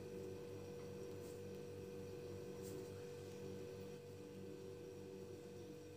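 Faint steady electrical hum with a thin steady tone over it, and two faint brief ticks in the first half.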